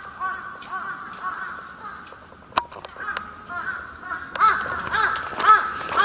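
Crows cawing: a run of short, arched calls that grows louder and comes faster over the last second and a half, with a single sharp click about two and a half seconds in.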